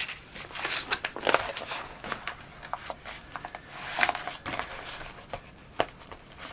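Irregular rustling and crinkling of a large sheet of Oramask 813 stencil vinyl on transfer paper being handled and laid onto a wooden board, with a few sharp clicks and taps.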